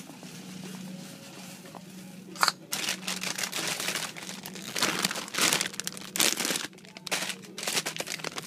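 Crinkling and rustling of plastic in irregular bursts, starting about two seconds in, over a steady low hum.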